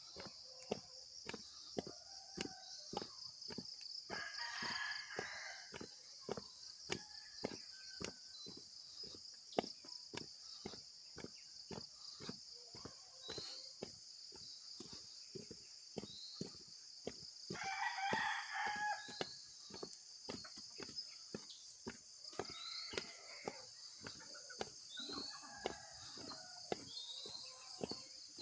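A rooster crowing twice, each crow lasting about two seconds, the first about four seconds in and the second near the middle, with weaker calls later on. Footsteps on a dirt path run through it at two to three steps a second, over a steady high buzz of insects.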